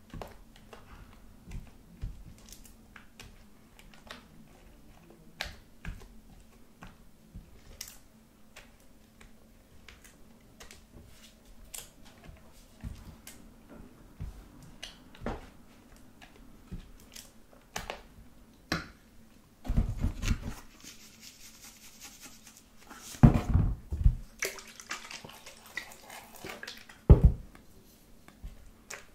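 Thick body-lotion slime mixture being stirred and folded with a silicone spatula in a glass dish: sticky wet clicks and small pops, with three louder squelching spells in the last third.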